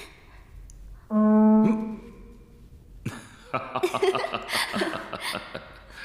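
A hujia, a Chinese reed pipe with a flared horn bell, blown once: a single loud steady note about half a second long, starting about a second in. About two seconds of choppy, irregular sound follow in the second half.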